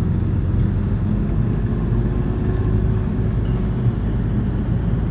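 Heavy road-works machinery engines running steadily: a low, even engine drone with a pitched hum.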